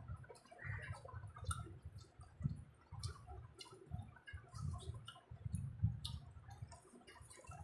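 Eating noises: scattered wet clicks and smacks of chewing and of hands working biryani rice, with soft irregular low thuds.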